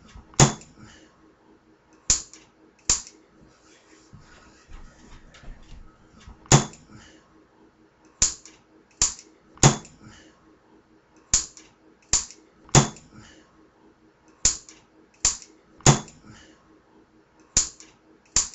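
Oxyhydrogen (HHO) gas igniting again and again in a small piston-and-cylinder test rig. About fifteen sharp pops come at uneven gaps of roughly half a second to two seconds, each ringing briefly.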